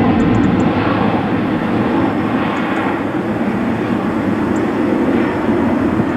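Airliner's jet engines, a loud steady rumble that slowly fades as the aircraft moves away.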